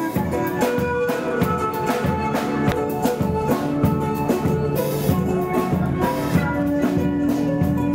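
Instrumental music: a melody of pitched notes over steady drums and percussion, with no singing.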